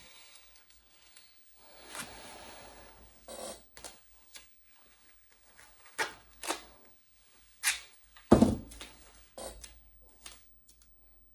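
Handling noises from taping a painting into a small picture frame with Gorilla duct tape: a short rasping stretch of about a second, then a string of sharp taps and knocks, the loudest a dull thump near the end.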